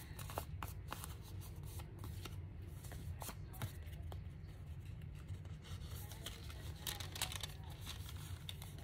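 Thin collage paper rustling and crinkling as it is handled and folded over the edge of a paper envelope, with scattered light crackles that bunch together about seven seconds in; a steady low hum runs underneath.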